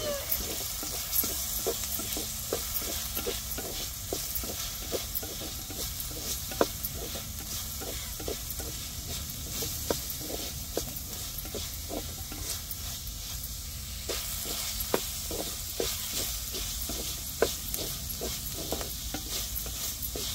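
Chopped shallots sizzling in hot oil while a wooden spatula stirs them, knocking and scraping against the pot about twice a second.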